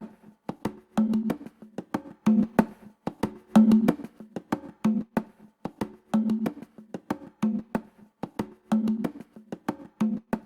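Intro music: a rhythmic percussion pattern of sharp wood-block-like clicks over a recurring low note.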